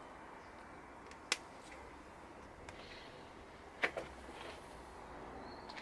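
A few sharp clicks and knocks from hands handling engine parts, the two clearest about a second in and near the middle, over a faint steady hiss.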